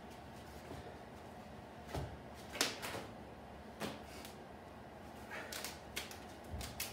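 Scattered short rustles and clicks from a wrapped steel bar being handled: leather and cloth wraps shifting and rubbing in the hands. The loudest comes about two and a half seconds in, with a cluster near the end and a couple of dull low thumps.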